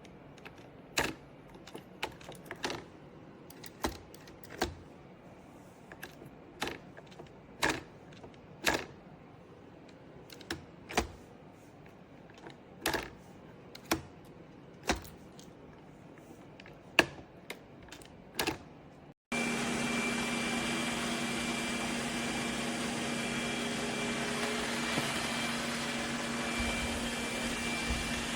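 Irregular sharp clicks and taps, roughly one a second, then a sudden switch about two-thirds in to a steady motor-driven whir with a constant high whine and a low hum.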